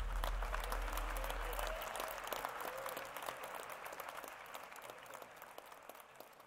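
Audience applauding in a large hall, the clapping fading away. A low rumble dies out about two seconds in.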